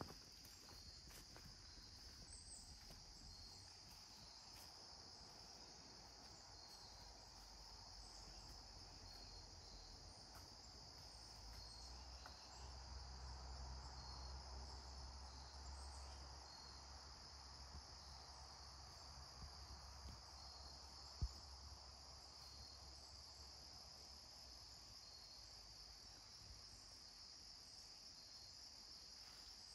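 Faint, steady high-pitched chorus of crickets. A low rumble swells and fades in the middle, and there is a single sharp click about two-thirds of the way through.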